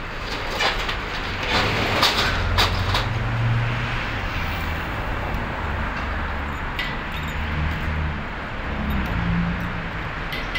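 Metal roll-down security gate rattling and clanking as it is pushed up, with several sharp clatters in the first three seconds. Under it runs the low rumble of street traffic.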